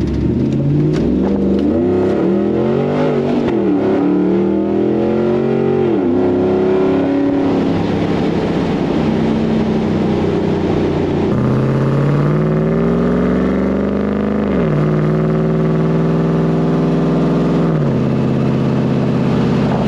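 LS V8 engine in a Toyota Land Cruiser 80 Series accelerating through the gears of its automatic gearbox. The engine note rises steadily, then drops sharply at each upshift, about four times.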